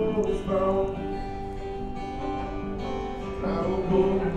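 Background music led by a strummed acoustic guitar.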